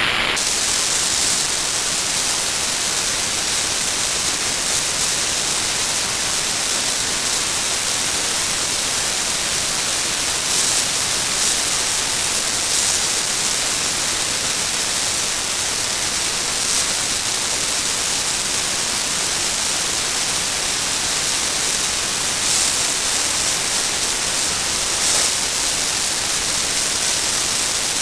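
Handheld angle grinder grinding down steel rebar: a loud, steady, unbroken grinding noise, swelling briefly now and then. The grinder is flattening the sides of a welded rebar cage so a metal plate will sit flush on it.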